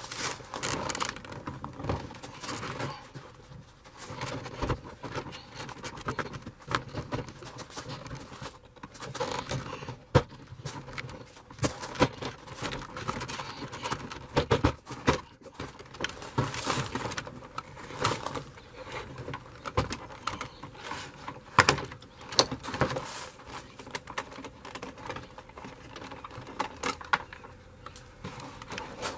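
Plastic interior door trim panel of a pickup being worked loose and lifted off the door: irregular clicks, knocks and rattles of the plastic panel and its clips as it is handled, with a few sharper knocks in the middle.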